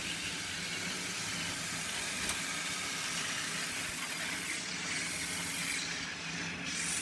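Battery-powered Tomy and TrackMaster toy train engines running on plastic track: a steady whir of small motors and wheels.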